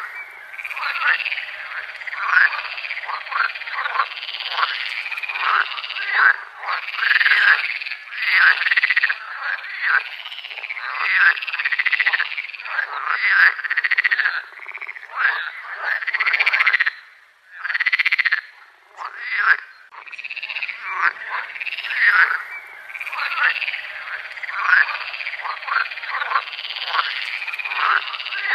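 Chorus of many frogs croaking, calls overlapping densely, each rising and falling in pitch, with a brief lull a little past the middle.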